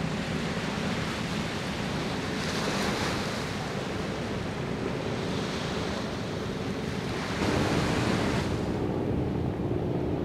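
Waves washing ashore and wind buffeting the microphone, swelling every couple of seconds, over a faint steady low hum. About three-quarters of the way through the sound steps up abruptly and the hum shifts to a different pitch.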